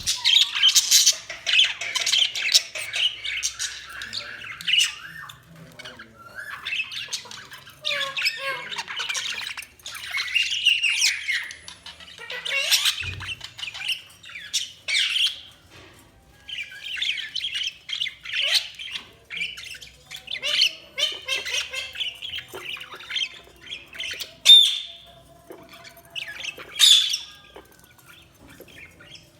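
Budgies chattering and chirping in long warbling bursts, with short gaps, broken by sharper squawks; two loud squawks come near the end.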